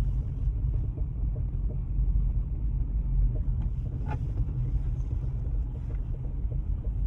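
Polestar 2 on the move: a steady low road rumble with a few faint light clicks, the clearest about four seconds in. The clicks are the front suspension noise, which the technician traces to a broken plastic front strut bearing with missing ball bearings.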